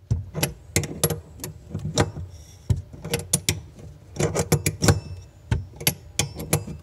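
Wrench on a brass compression fitting, tightening a stainless braided supply line onto a tee adapter at a sink shut-off valve: an irregular run of sharp clicks and taps as the tool is fitted, turned and refitted on the nut.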